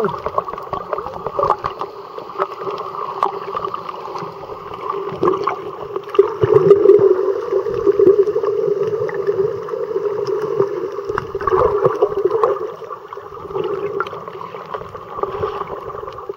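Underwater sound picked up by a submerged camera: muffled water rushing and sloshing as the camera moves with a finning swimmer, under a steady hum, with scattered sharp clicks throughout. It is loudest in the middle, when the camera is jostled.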